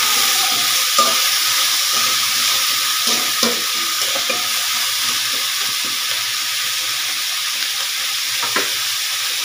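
Diced carrots, potatoes, onion and peppers sizzling in hot oil in a metal wok, with a steady frying hiss. A metal ladle stirs them, scraping and knocking against the pan a few times.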